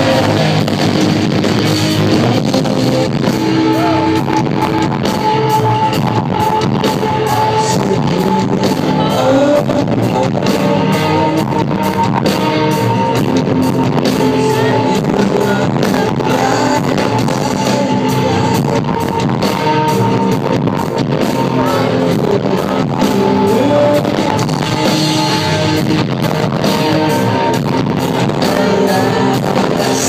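Rock band playing live and loud: distorted electric guitar, drum kit and a male singing voice.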